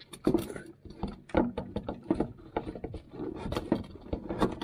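Boiler flue pipe being worked into place, with irregular knocks and scraping as it is pushed and shifted in the wall opening.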